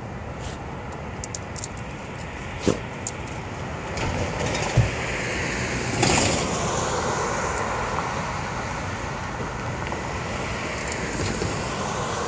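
Street traffic noise with a car approaching, getting gradually louder over the second half, and a few short knocks and a thud along the way.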